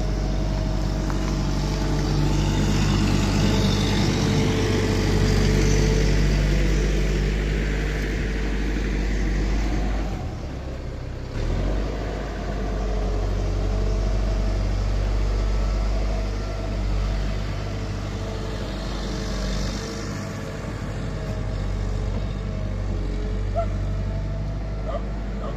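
Cat M313D wheeled excavator's diesel engine running steadily while the boom and bucket are worked, with a high hiss that swells twice as the hydraulics are loaded. The engine's low note drops out briefly about ten seconds in.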